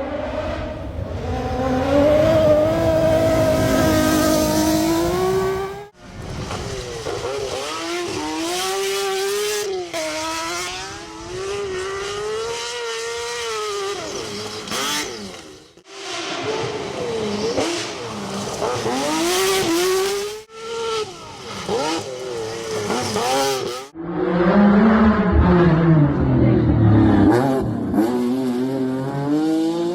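Lancia Stratos's 2.4-litre Dino V6 rally engine at high revs, its note climbing and dropping repeatedly as it is driven hard through the gears. The sound jumps abruptly between several short takes.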